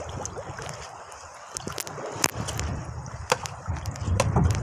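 Sea water splashing and sloshing at the side of a small fishing boat, with a few sharp knocks, the loudest about two seconds in, and a low rumble of wind on the microphone near the end.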